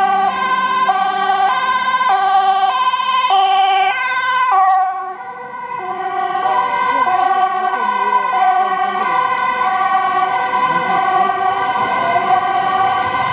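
Dutch ambulance siren sounding its two-tone high-low call, switching pitch about every half second. After a brief dip about five seconds in, the two tones blur together and sound steadier.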